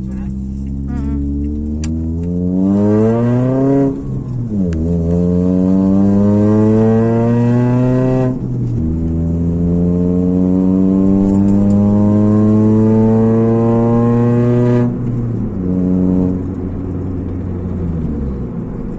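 Engine running through a shortened straight-pipe exhaust: it idles briefly, then is revved up and held, with the revs climbing slowly in long pulls and dropping back to idle between them, about three times.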